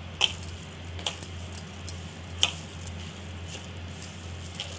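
Glass bangles on a wrist clinking now and then as a hand mixes soft dough in a plastic bowl: four or five short, light clinks over a low steady hum.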